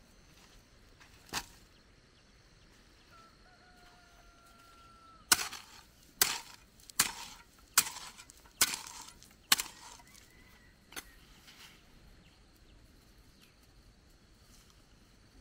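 A hand hoe striking into hard, dry, pebbly soil: six sharp chopping blows a little under a second apart, starting about a third of the way in, with a single lighter knock later.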